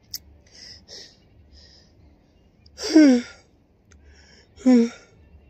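A man out of breath from a steep hill climb, breathing hard in short puffs, then letting out a loud sigh that falls in pitch about three seconds in and a shorter voiced exhale near the end.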